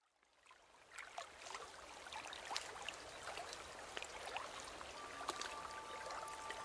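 Trickling, babbling water, fading in at the start, with many small splashes and drips. About five seconds in, a few long held musical tones begin.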